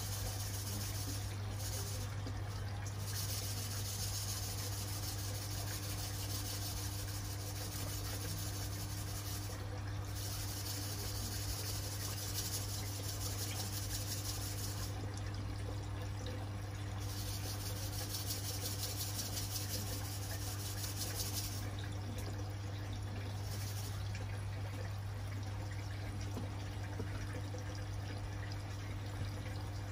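Aquarium water bubbling and trickling steadily from the aeration, over a steady low hum.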